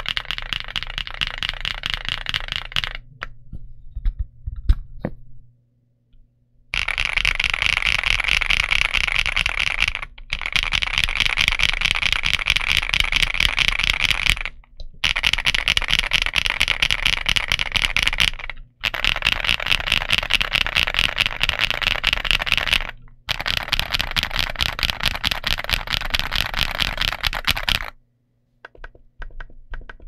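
Fast typing on a stock Gamakay TK75 Pro aluminum 75% mechanical keyboard with KTT Hyacinth linear switches and double-shot PBT Cherry-profile keycaps: long runs of rapid keystrokes broken by short pauses. A few lone key presses and a near-quiet gap come a few seconds in, and the typing stops near the end.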